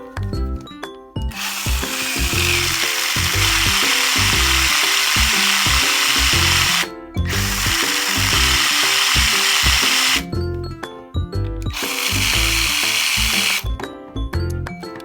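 A small cordless power driver running in three bursts of several seconds each, over background music.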